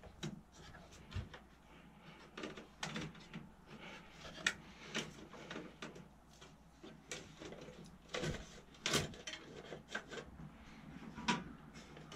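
Irregular clicks, knocks and rustling from hands working inside an open desktop computer tower: cable connectors and the metal case and drive cage being handled, with a few sharper clicks standing out.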